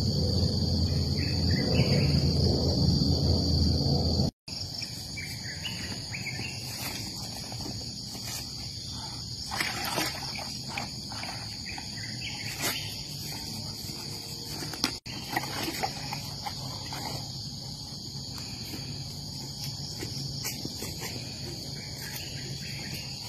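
Insects droning steadily in a rubber plantation, one continuous high-pitched buzz. There is a louder low rumble for about the first four seconds, and a few light knocks further on.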